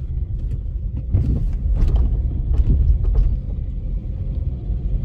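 Steady low rumble of a car on the move, road and engine noise, with a few short knocks between about one and three seconds in.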